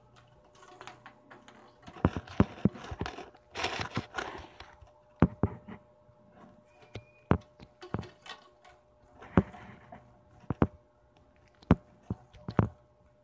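Irregular sharp knocks and taps, about a dozen, with stretches of rustling between them in the first few seconds.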